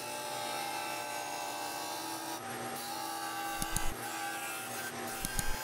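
Benchtop disc sander running steadily while the edge of a small wooden handle blank is held against the abrasive disc and ground down to a marked line. A few short knocks come about two-thirds of the way through and again near the end.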